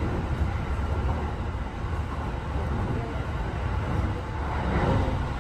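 Interior running sound of a Kintetsu 8A series electric train: a steady low rumble of wheels and running gear, swelling slightly a little before the end.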